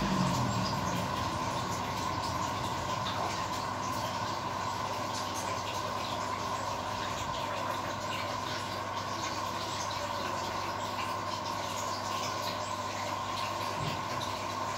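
Koi tank's aeration and filtration running: a steady low hum with bubbling water.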